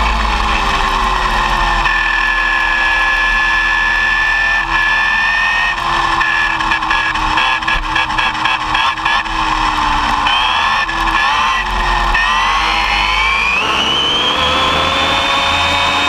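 ARRMA Typhon 6S RC buggy's brushless electric motor and drivetrain whining at speed, heard from on board with tyre and road noise. The whine wavers and stutters midway, then climbs in pitch about two-thirds through as the car accelerates.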